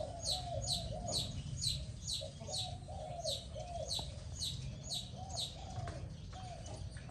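Dove cooing in runs of short, rounded coo notes, with a high, falling chirp from another bird repeating about twice a second throughout.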